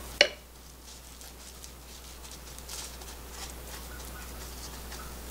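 A single sharp knock of a wooden spoon against a glass dish, then faint soft patting and rustling as floured fingers press ground-meat filling onto a perilla leaf.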